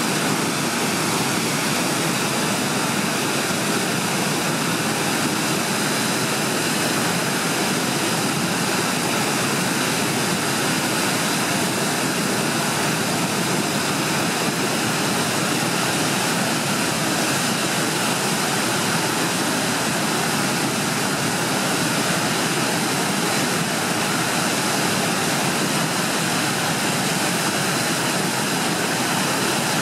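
Steady rush of whitewater from the Skookumchuck tidal rapids, running during a very large tidal exchange.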